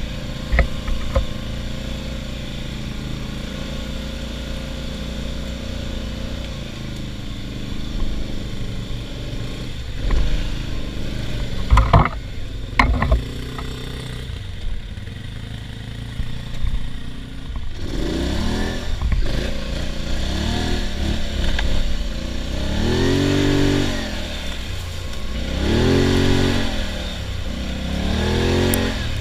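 ATV engine running at a steady speed, with a few sharp knocks near the middle. In the second half it is revved up and down repeatedly, each rev rising and falling over a second or two.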